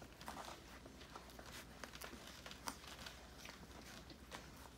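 Faint, irregular little clicks and smacks of Siberian husky puppies suckling at their mother's teats.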